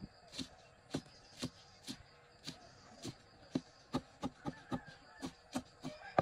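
A cleaver chopping red chillies on a thick round wooden chopping block: sharp, evenly spaced knocks, about two a second, quickening to about four a second in the last two seconds.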